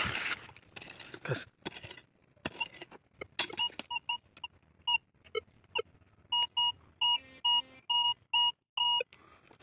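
Metal detector giving a target signal: a run of short two-tone beeps that start a few seconds in and come longer and more regularly toward the end as the search coil is swept over a freshly dug hole. Before the beeps there are a few knocks and scrapes of digging in stony soil.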